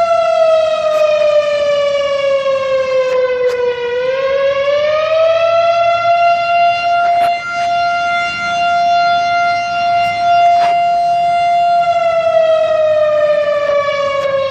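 Outdoor civil defense air raid siren wailing loudly, one steady pitched tone. Its pitch sags about four seconds in, climbs back and holds, then begins sliding down again near the end.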